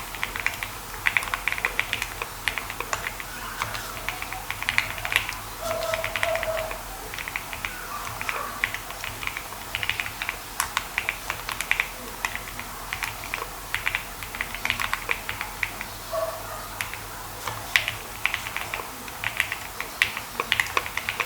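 Grey Studio Space65 mechanical keyboard being typed on as a sound test: irregular bursts of rapid keystroke clicks with short pauses between them.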